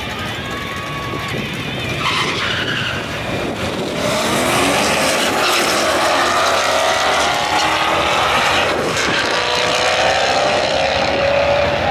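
Twin-turbocharged V8 Chevrolet Camaro SS and a second car launching side by side in a drag race. The engines run steadily at the line, then a hard launch about two seconds in. The engines get louder and climb steadily in pitch as the cars accelerate down the strip.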